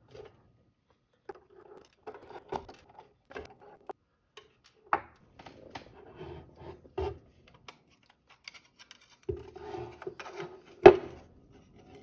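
Hands taking apart a fanless Qotom mini PC's metal case on a wooden tabletop: small clicks and scrapes as screws are taken out and set down, then a rubbing scrape as the bottom plate is worked loose, with one sharp click near the end, the loudest sound.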